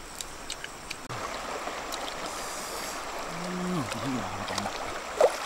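Shallow river water rushing steadily over a rocky bed, starting about a second in, with a man's voice briefly in the middle. Before that, a few faint crackles of a wood fire.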